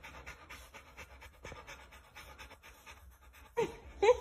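Young Rottweiler panting rapidly and steadily, about five or six breaths a second. Near the end a brief, louder voice breaks in.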